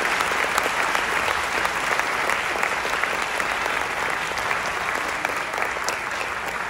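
Audience applauding: dense, steady clapping that fades a little toward the end.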